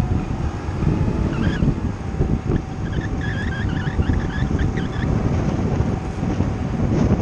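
Kymco Agility 50cc scooter under way, its engine a steady drone beneath heavy wind buffeting on the chest-mounted microphone. From about a second in to five seconds in, a bird sings a quick run of chirping notes over it.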